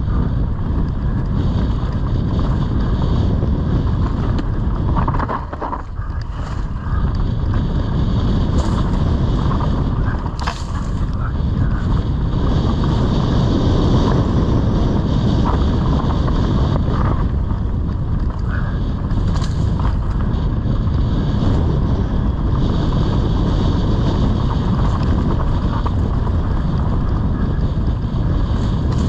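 Mountain bike descending a dirt singletrack at speed: heavy wind noise on the action camera's microphone mixed with tyre rumble and the rattle of the bike over rough ground, with a few sharper knocks from bumps.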